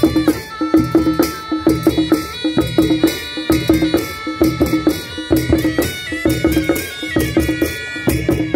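Nepali naumati baja band playing: sahanai shawms carry a sustained, reedy melody over a steady beat of drums and cymbal clashes.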